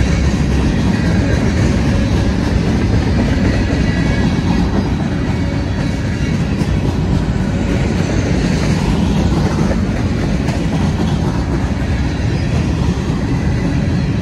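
A CSX mixed freight train's boxcars, flatcars and covered hoppers rolling past close by: a loud, steady rumble of steel wheels on the rails.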